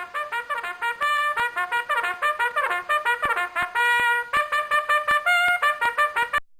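A fast trumpet-like brass melody of quick, separate notes that cuts off abruptly near the end.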